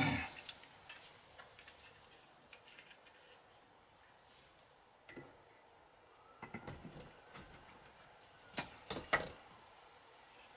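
Metal parts clinking and tapping as they are handled, in scattered light knocks with a cluster of sharper clinks about nine seconds in.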